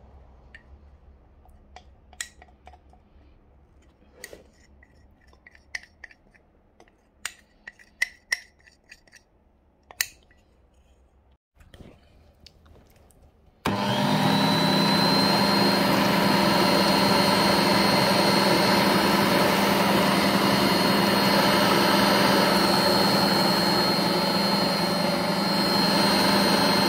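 Light clinks and taps of glass and utensils as chocolate is scraped from a glass jug into a glass bowl. About halfway through, an electric stand mixer starts abruptly and runs at steady speed with a high whine over its motor hum, its twin beaters mixing the chocolate into cream-cheese filling.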